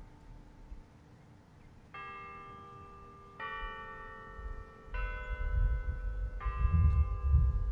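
A sequence of bell tones, struck four times about a second and a half apart, each ringing on into the next. A low rumble runs underneath during the last two strikes.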